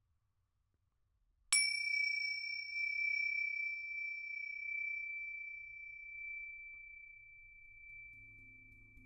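A single high-pitched metal chime or small bell struck once, about a second and a half in, its clear ring fading slowly over several seconds. Low humming tones come in near the end.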